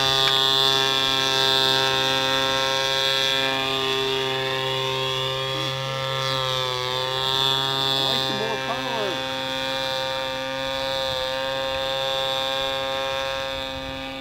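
Ryobi 31cc gas engine of a radio-controlled model airplane turning a 16x8 three-blade prop, running steadily in flight overhead. Its pitch drops briefly about six to seven seconds in, then comes back up.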